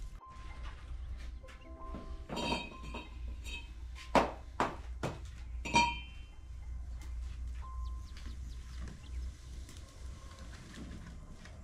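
A handful of sharp knocks and clinks of metal cooking pots and utensils, bunched between about two and six seconds in; two of them ring briefly like struck metal. Faint background music plays underneath.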